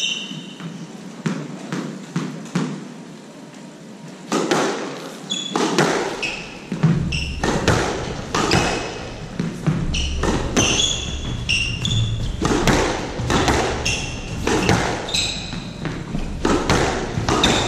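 Squash rally: a squash ball struck by rackets and smacking off the court walls, in quick irregular hits, with players' shoes squeaking on the wooden floor and their footfalls. The hits are sparser for the first few seconds, then come fast and louder.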